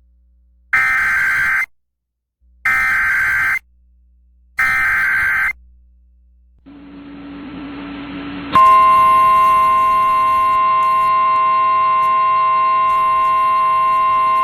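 Three loud bursts of EAS SAME data tones, the digital header of a new NOAA Weather Radio severe thunderstorm warning, each about a second long and evenly spaced. After a few seconds of faint radio hiss, the steady 1050 Hz weather radio warning alarm tone comes on and holds.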